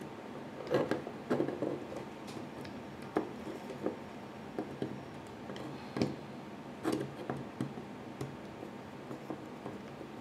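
Small irregular clicks and taps from a screwdriver and small mounting screws being turned into the side of a 2.5-inch SSD's casing, a dozen or so light ticks spread unevenly.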